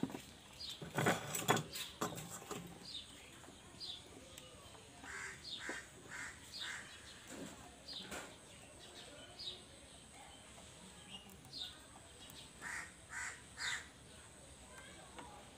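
Faint bird calls in the background: short calls, scattered irregularly throughout.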